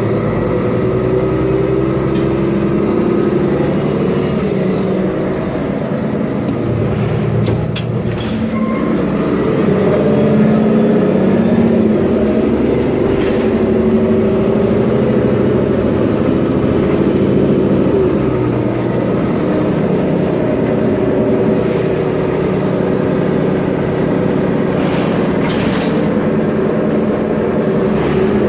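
Second-generation Mercedes-Benz Conecto G articulated bus under way, its OM457LA inline-six turbodiesel running with the pitch shifting as it pulls and changes speed, alongside the whine of its ZF drive axle differential. A few brief rattles and clicks come through, about a third of the way in and near the end.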